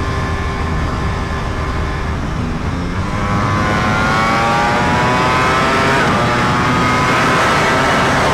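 Ducati Panigale V4 R's 998 cc V4 engine under way, cruising steadily, then accelerating from about three seconds in with its pitch climbing. About six seconds in the pitch dips briefly on an upshift, then climbs again, over steady wind and road noise.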